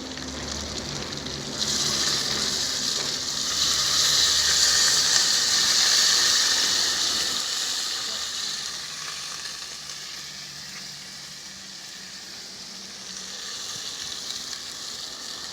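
Fried dumplings sizzling in hot oil. The sizzle jumps up suddenly about a second and a half in, is loudest for a few seconds, then dies down to a softer steady frying and picks up a little near the end.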